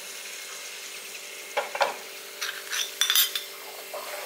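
A metal ladle stirring thick milk pudding in an aluminium pot, scraping and clinking against the pot several times in the second half, over a steady low hiss.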